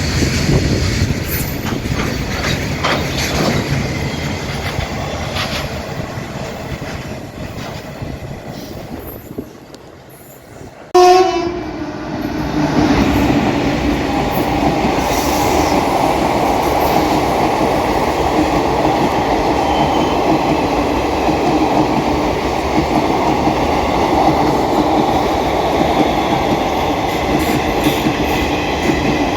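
Indian Railways express trains running at speed. A passing train fades away over the first third, then a train horn sounds suddenly about eleven seconds in, and a train runs past loudly and steadily for the rest.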